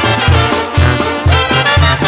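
Banda sinaloense brass band playing an instrumental interlude: trumpets and trombones over low bass notes pulsing on the beat about twice a second.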